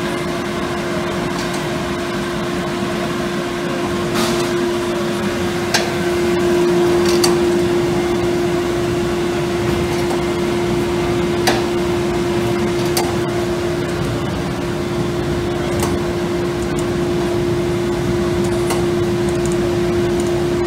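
Bauer model 333 peanut drum roaster running with its drum motor and exhaust fan on: a steady machine hum carrying one constant tone, with a few light clicks scattered through.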